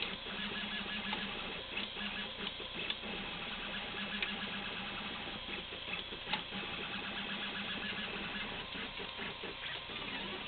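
RepRap Prusa Mendel 3D printer printing: its stepper motors buzz through short moves at changing pitch as the carriage and geared extruder shuttle back and forth, with scattered small clicks.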